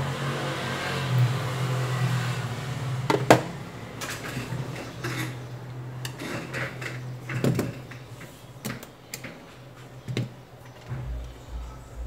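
Small clicks and taps of a smartphone and its parts being handled and set down on a silicone work mat, with one sharp click about three seconds in. A low hum with a rushing noise sits under the first three seconds, then fades.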